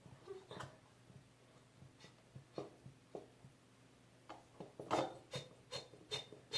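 Plastic bottle of Irish Spring body wash being squeezed and handled, with faint rubbing and clicks, then a quicker run of sharp taps near the end as the nearly empty bottle is worked to get the last out.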